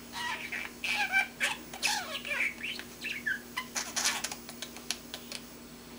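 Young budgerigar babbling: a rapid, run-on stream of chirps, warbles and clicks, with the speech-like chatter of a budgie learning to talk. It thins out near the end.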